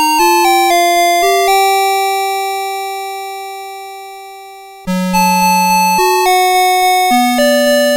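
Electronic alarm melody from a Citizen Melody Box 30 series alarm clock: bright beeping notes in a quick tune. One long note then fades for about three seconds, and the tune starts up again loudly about five seconds in.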